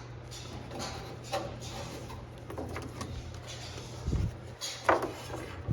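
Scraping, rubbing and light knocks of washing-machine parts being handled as something is threaded through the cabinet, with a dull thump about four seconds in and a sharper scrape shortly after, over a steady low hum.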